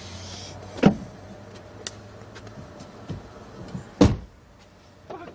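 A car's electric window motor runs with a steady low hum for about three seconds. Two heavy thumps come about a second in and about four seconds in.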